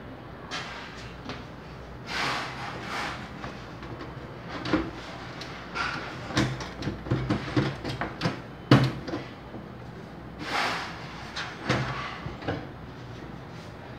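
Metal side panel of a desktop PC tower case being handled and fitted against the case: scraping swishes and a scatter of clicks and knocks, the loudest a sharp knock about nine seconds in.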